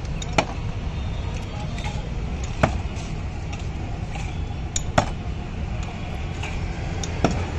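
Four sharp clacks, about two seconds apart, from a metal hand lime squeezer and knife working on a steel cart top as limes are cut and squeezed, over a steady low background rumble.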